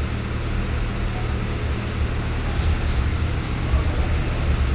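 A steady low rumble of an idling engine.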